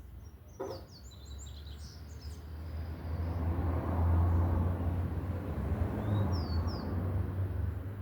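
Birds chirping in short high calls, with a single click just under a second in. From about three seconds a low rumble swells, peaks, and slowly eases off.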